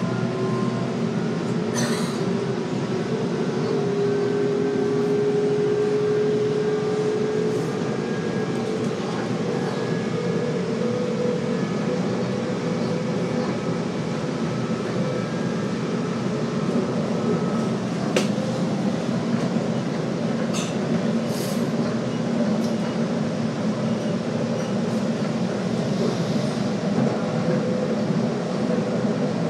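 Sydney suburban electric train running at speed, heard from inside the carriage by the doors: a steady rumble of wheels on rail with a faint hum, and a few sharp clicks from the track.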